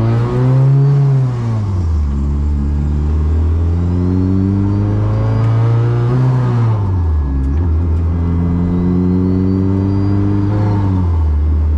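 Turbocharged Honda Brio's swapped engine accelerating hard through the gears. The revs climb steadily and fall sharply at each of three upshifts, with a thin high whistle rising along with the revs.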